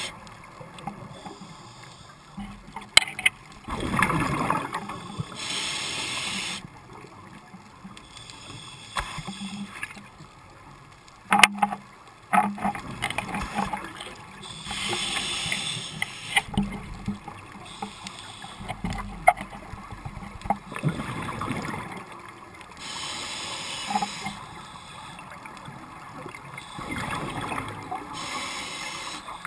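Scuba regulator breathing heard underwater: a rushing, bubbling swell of exhaled air comes about every eight seconds, lasting a second or two each time. A few sharp clicks fall between the breaths.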